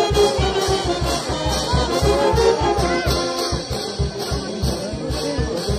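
Brass band playing festive music over a steady, driving drum beat.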